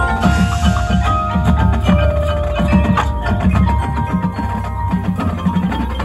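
Marching band playing, with the front ensemble's marimbas and bells prominent over a repeated low drum pulse.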